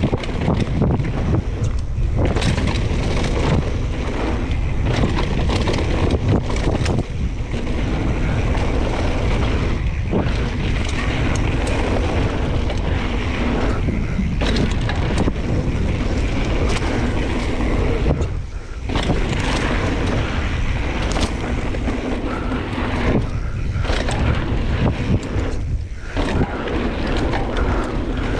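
Wind buffeting the microphone of a camera riding on a Giant Trance 2 mountain bike, mixed with tyre noise on the dirt trail and sharp rattles and clicks as the bike goes over bumps.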